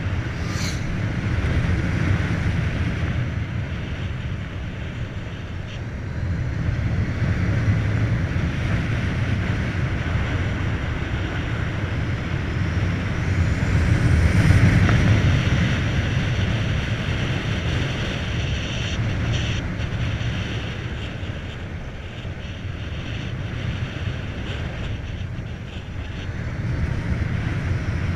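Wind rushing over the microphone and tyre noise from a Volta BCN Sport electric motorcycle cruising at about 60–70 km/h. It is a steady roar that swells louder around the middle.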